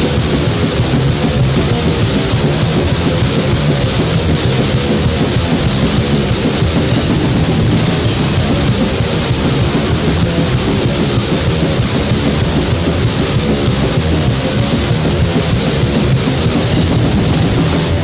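Heavy metal band playing: distorted electric guitars and drums in a dense, loud, unbroken wall of sound.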